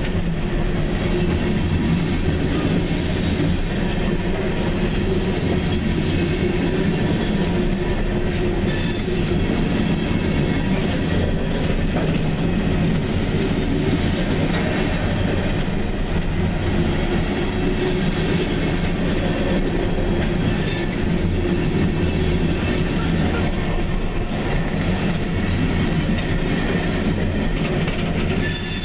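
Empty open-top coal cars of a freight train rolling past close by, a steady rumble and rattle of steel wheels on rail with clickety-clack over the joints and a thin high wheel squeal on the curve.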